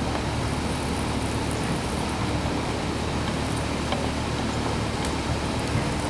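Steady, even low background rumble with a faint high hiss and no distinct events.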